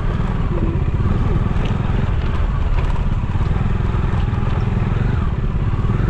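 Motorcycle engine running steadily as the bike rides slowly along a rough dirt track.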